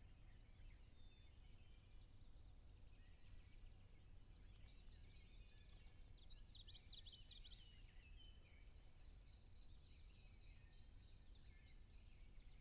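Faint birdsong from several small birds chirping throughout, with a brief run of quick rising-and-falling notes about six seconds in, over a steady low rumble.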